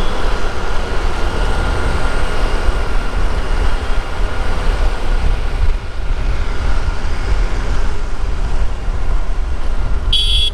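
Steady wind rumble on the microphone mixed with a two-wheeler's engine and road noise while riding along a road. A short high beep sounds near the end.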